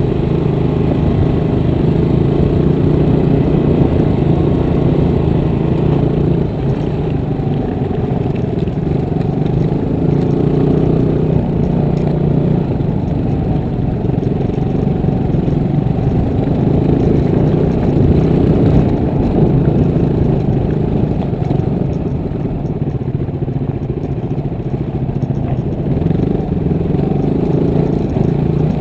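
Motorcycle engine running at trail speed on a rough dirt track, its note rising and falling a little with the throttle, with some clatter from the ride over the stony ground.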